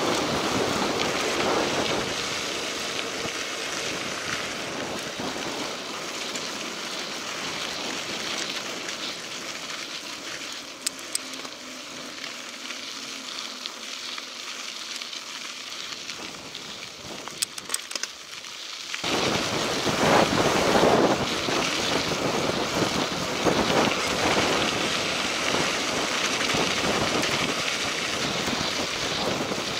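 Mountain bike rolling along a dirt road: a steady rush of tyre noise with wind on the microphone. A few sharp clicks come past the middle, and about two-thirds in it turns louder with gusty wind buffeting.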